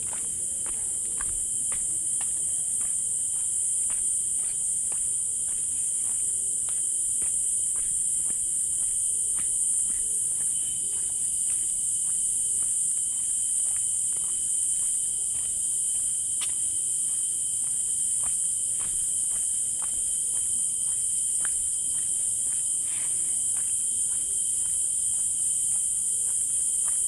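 Steady, high-pitched chorus of forest insects, unbroken throughout, with scattered faint clicks and ticks.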